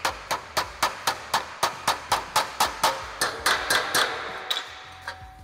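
Hand hammer tapping the curved flange of a sheet-steel trunk drop-down panel against the edge of a dolly, tuning the flange after shrinking. A quick, even run of taps, about four a second, that slows to a few last taps and stops near the end.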